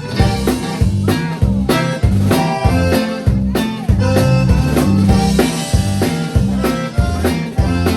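Live conjunto band playing a tune, with drum kit and bass keeping a steady beat under accordion and bajo sexto.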